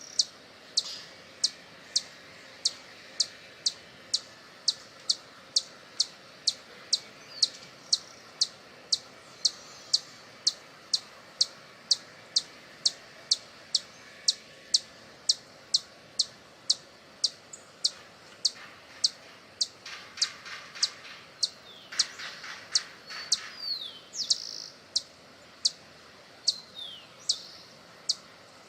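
Hummingbird giving its high, sharp chip call over and over at an even pace, a little under two chips a second. Other birds make a buzzy rattling call partway through and a few brief falling whistles near the end.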